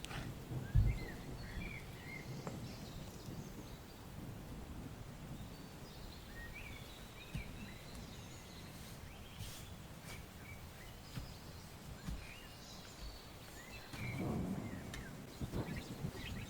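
Small birds chirping intermittently over a steady background hiss, with a few low knocks and thuds, the loudest about a second in.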